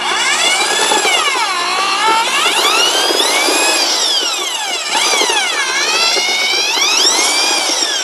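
Corded electric drill spinning a Marshalltown EggBeater mixing paddle through wet concrete in a bucket. The motor whine sags and climbs back over and over as the thick mix loads and frees the paddle.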